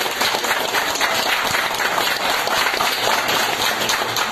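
Small crowd applauding, many hands clapping steadily as a speech ends.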